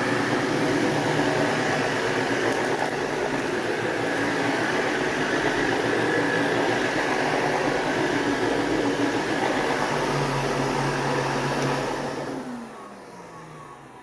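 Sebo 360 upright vacuum running on carpet with a steady motor and brush noise, then switched off near the end, its motor winding down with a falling pitch.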